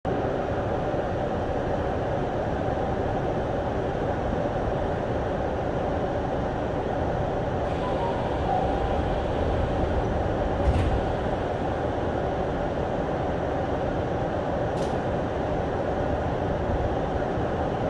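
Tokyu 5050-series commuter car standing at a platform, filled with the steady hum of its onboard equipment. About eleven seconds in there is a single knock as the doors close, and a fainter click follows a few seconds later.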